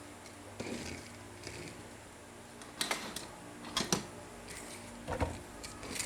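Light clicks and knocks of toys being handled, a few coming in quick pairs, over a faint steady hum.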